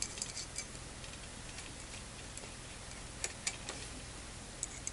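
Faint, scattered small clicks and ticks of an SMA coaxial connector being unscrewed and handled at a port of a metal-cased microwave power divider.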